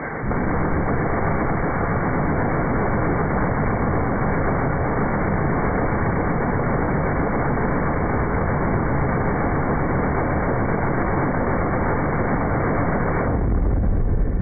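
M134 minigun, an electrically driven six-barrel 7.62 mm rotary gun, firing one long continuous burst, slowed down with the slow-motion footage into a dense unbroken rumble with no separate shots. Near the end the sharper part of the sound falls away and a deeper rumble swells.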